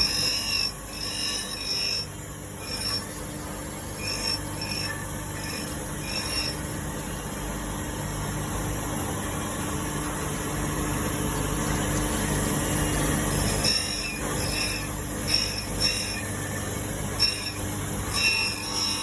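MF 400A automatic carbide knife grinder running with a steady motor hum, its grinding wheel rasping against the carbide blade in short repeated passes. There is a quieter stretch without rasping in the middle.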